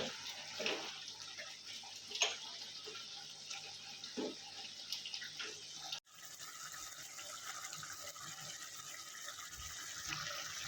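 Pork cooking in gravy in a pan, a steady sizzling hiss, with a few light knocks of the stirring spoon in the first half. The sound drops out for an instant about six seconds in, then the steady sizzle carries on.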